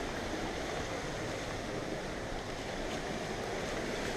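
Steady rushing of a forest waterfall cascading over rocks.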